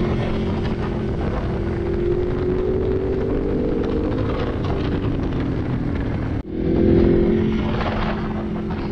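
Ducati Multistrada 1200's L-twin engine under way on the road, its note climbing gradually as the bike gathers speed, over a steady rush of wind noise. The sound cuts out for an instant about six and a half seconds in, then picks up again.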